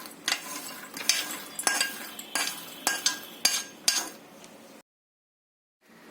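Metal spoon stirring and scraping in a cooking pan: about seven sharp clinks at roughly half-second intervals, cutting off suddenly after about five seconds.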